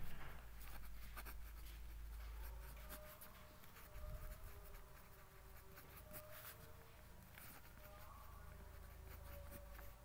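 Ballpoint pen writing on paper, faint irregular scratching strokes with short pauses between words.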